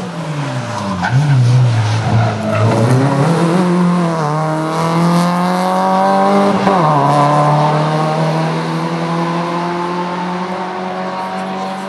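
Rally car engine heard from inside the cabin. The revs fall sharply in the first two seconds, then climb. After a short dip they climb again and drop at an upshift just past the middle, then pull steadily and rise slowly.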